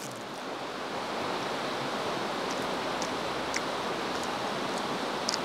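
Steady rushing of running water from a nearby stream, with a few faint clicks.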